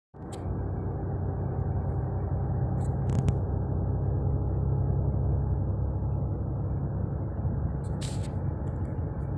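Steady low road and engine rumble inside a car travelling at highway speed, with a few faint clicks.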